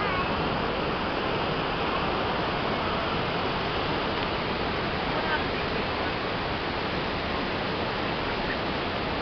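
Steady, even rushing of Niagara Falls' water pouring down the cliff.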